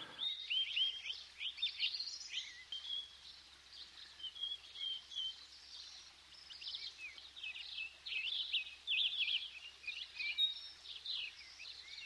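Many small birds chirping and twittering together, in a busy run of short, quick, overlapping calls that thin out briefly in the middle and pick up again.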